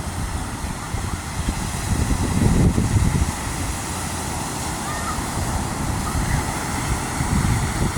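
Ocean surf washing on a beach, with wind buffeting the microphone; the surf swells around two to three seconds in.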